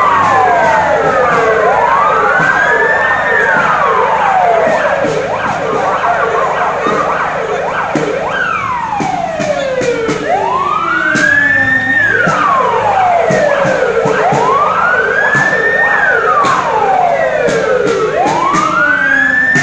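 Police vehicle sirens wailing, several overlapping, each slowly rising and falling in pitch over a few seconds.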